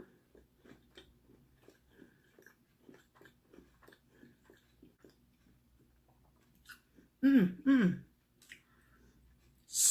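A mouthful of chicken burger being chewed close to the microphone, with soft regular chews about twice a second. About seven seconds in, the eater makes two loud vocal sounds that each fall in pitch, and a short sharp hiss comes at the very end.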